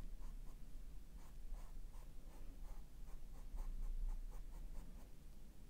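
Paintbrush bristles scratching across a stretched canvas in quick, short dabbing strokes, about three or four a second, as an angle brush lays watered-down acrylic glaze.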